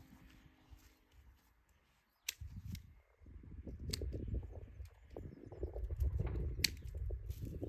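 Hand pruning shears snipping through small tree branches: several sharp snips, with rustling and a low rumble underneath.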